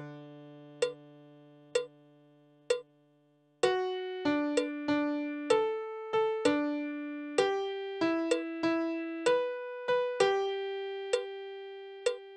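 Software piano playing a MIDI arrangement at half speed: a low chord held at the start, then a slow melody of single notes from about three and a half seconds in, ending on one long held note. A sharp metronome click sounds evenly about once a second over the notes.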